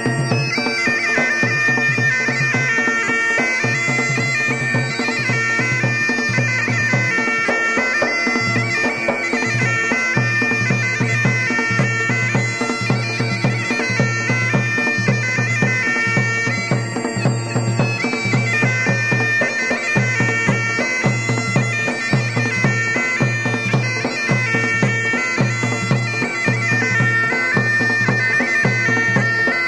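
Bagpipe music in the style of the Garhwali mashakbeen: a reedy melody over a steady drone, with a drum beating evenly underneath.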